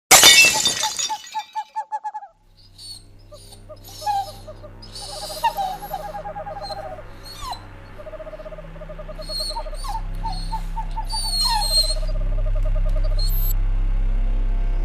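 Horror sound effects: a sudden loud hit at the start that dies away over about a second. It is followed by a low drone that swells steadily, with rapidly pulsing animal-like calls and short high hissing bursts over it.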